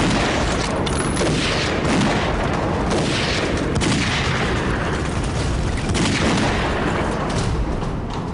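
Battle sound: dense, continuous gunfire with booms mixed in.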